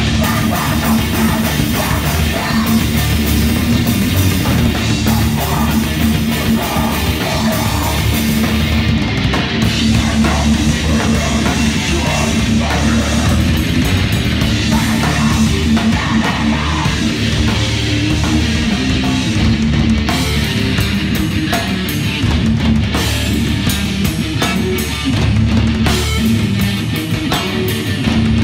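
A rock band playing live and loud: electric guitar over a drum kit, a continuous heavy wall of sound.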